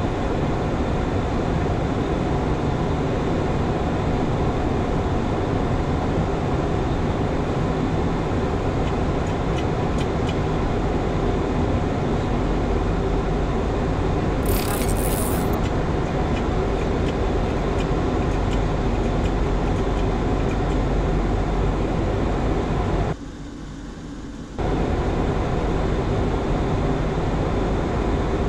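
Boeing 737-800 flight deck noise in flight: a steady rush of airflow with engine hum. A short high hiss comes about halfway, and the noise drops away for about a second and a half near the end.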